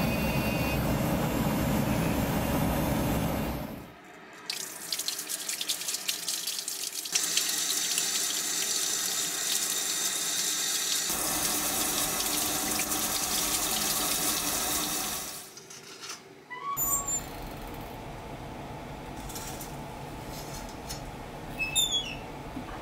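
A hand-held rotary polishing tool runs against the rim of a cloisonné cup for about four seconds. Then a tap runs while the piece is scrubbed with a bristle brush under the stream, for about eleven seconds. After a short break a quieter steady hum follows, with a couple of clicks near the end as the electric kiln's door is handled.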